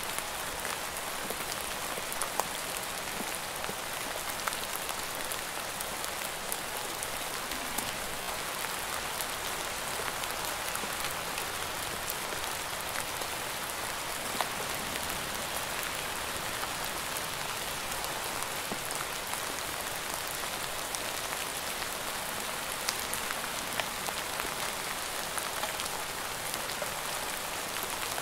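Steady rain falling: an even hiss with scattered sharper drop impacts.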